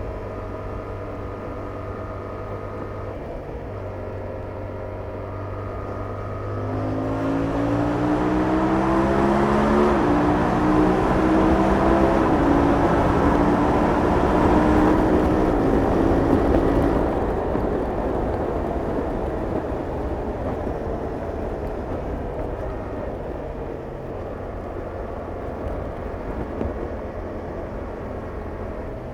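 Yamaha R7's 689 cc parallel-twin engine through its stock exhaust, running steadily, then accelerating hard from about seven seconds in with rising pitch. The pitch drops back once at about ten seconds, like a gear change, and climbs again until about seventeen seconds. There the throttle closes, and the engine note fades under a steady rushing noise.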